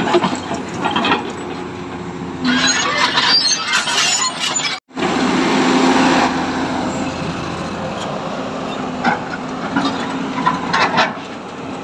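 Hyundai 210 excavator's diesel engine running at a steady hum, with stretches of hissing and rattling clatter over it. The sound cuts out for an instant near the middle.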